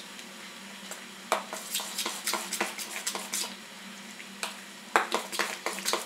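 A spoon stirring thick dal dhokla batter in a stainless steel bowl, scraping and clinking against the bowl in quick strokes. It starts about a second in, pauses briefly midway, then picks up again.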